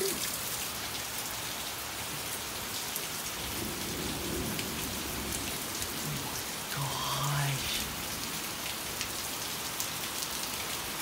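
Heavy rain falling steadily, hissing and pattering on hard surfaces close by, with a low rumble of thunder swelling in the middle.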